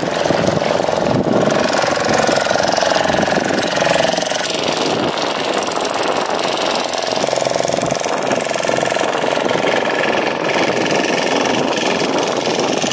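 An engine running steadily at an even level.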